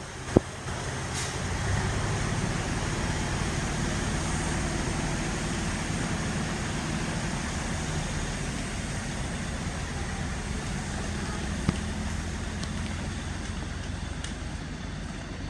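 Fiat ALn 663 diesel railcar pulling away from a station platform: its diesel engines run steadily, then fade slowly as it moves off. A sharp click about half a second in and another near twelve seconds.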